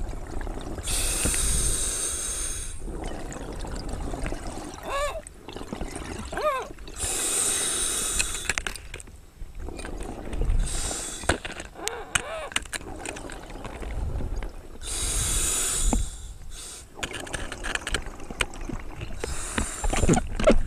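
A scuba diver breathing through a regulator underwater: five loud rushes of exhaled bubbles come a few seconds apart. Between them are short wavering whines.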